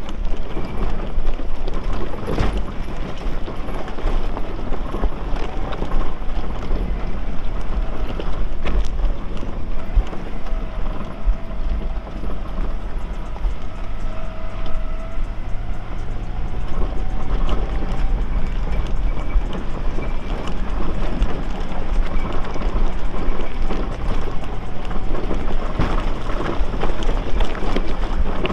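Lifted Nissan R50 Pathfinder crawling over a rocky trail: the engine runs with a steady low rumble while tyres grind over rocks and the body and suspension knock and rattle throughout.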